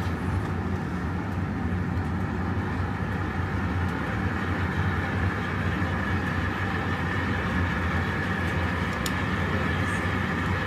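Steady, unchanging rushing noise of glassworks furnace and glory-hole burners running, with a low rumble under a higher hiss.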